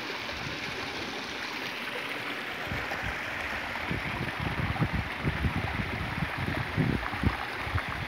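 Small rocky mountain stream flowing steadily over boulders. From about three seconds in, irregular low thumps and rumbles on the microphone come and go over the water.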